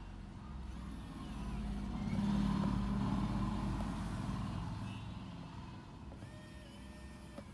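A motor vehicle passing by, its engine rumble swelling to its loudest about two and a half seconds in and then fading away.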